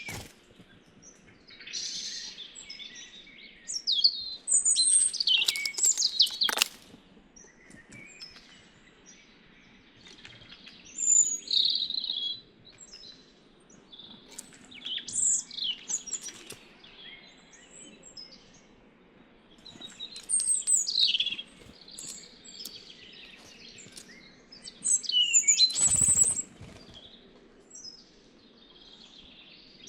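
Wild songbirds chirping and calling in short bursts, several at once, with a sharp knock about six seconds in and another near the end.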